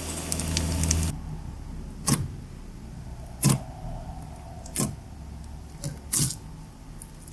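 Fizzing liquid crackling with many tiny pops for about the first second. Then fingertips pressing into foil-covered slime make a short, sharp crinkling crackle about every second and a half, four times, with a few fainter ones between.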